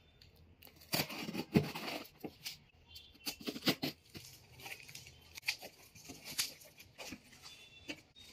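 Cardboard parcel being opened: scissors cutting the packing tape, the tape tearing away and the cardboard flaps pulled open, in a string of irregular rips, snips and rustles starting about a second in.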